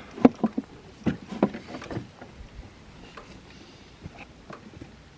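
Scattered light knocks and clicks of hands handling parts on a plastic Power Wheels ride-on Jeep. Several come in the first two seconds, then fewer and fainter ones.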